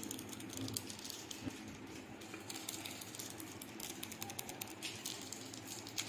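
Faint, irregular crinkling and ticking from a plastic seasoning sachet being shaken and handled, with chili flakes pattering down.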